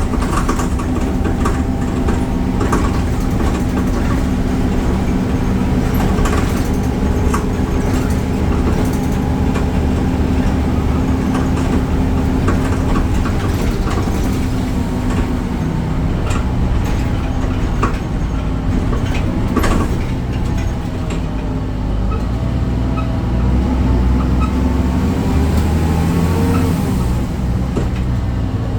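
BredaMenarini Avancity Plus city bus under way, its Deutz diesel engine and ZF gearbox running with a steady hum and many rattles and knocks. A whine rises in pitch through the second half and drops away near the end.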